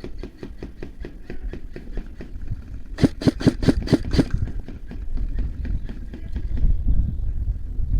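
Airsoft gun firing a rapid string of about seven sharp shots about three seconds in, after fainter, evenly spaced shots at about five a second in the first couple of seconds, over a steady low rumble.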